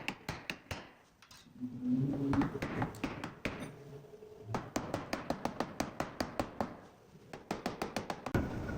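Rapid series of sharp taps or clicks, about five a second, with short breaks about a second in and again near the end.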